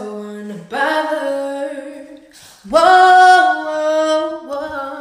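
A young woman singing a cappella in two sustained phrases. The second and louder phrase begins a little under three seconds in, sliding up into a long held note.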